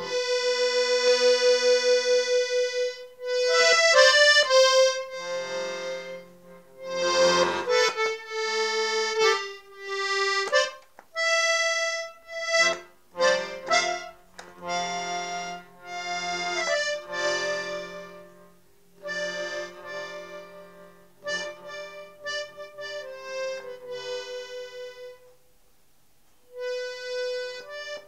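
Solo accordion playing a tune: sustained reedy melody notes and chords over lower bass notes, in phrases with short breaks, and a brief pause near the end.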